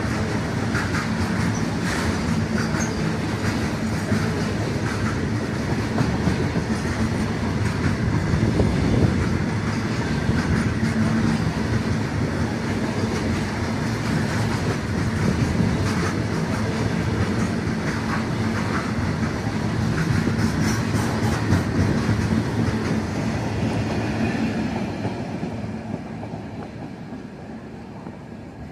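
BCNA covered-wagon freight train passing close by: a steady noise of steel wheels running on the rails, with scattered clicks over the rail joints, dying away near the end.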